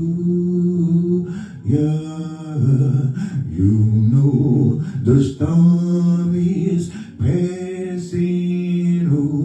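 Slow gospel worship singing or humming, drawn out in long held notes with no clear words.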